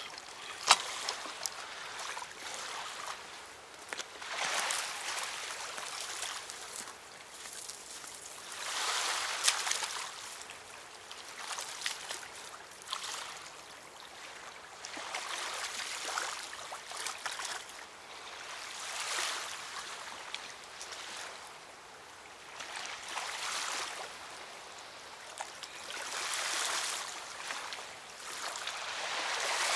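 River water lapping at the sandy bank, swelling and fading every three seconds or so, with a couple of short sharp clicks.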